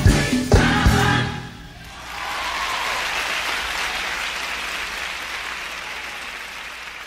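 A gospel mass choir and band finish a song with closing drum hits, and the music stops about a second and a half in. Audience applause follows about two seconds in and slowly fades.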